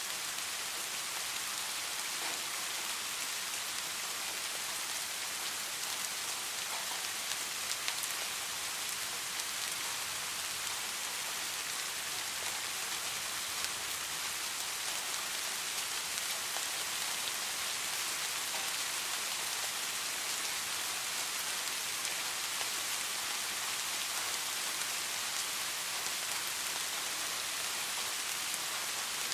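Steady rain falling and pattering on a surface, an even hiss with scattered individual drops ticking.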